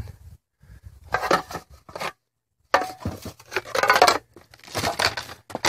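Rummaging through a heap of rusted tin cans and debris: cans scraping and clattering against each other with papery crinkling, in three bursts of about a second each with short pauses between.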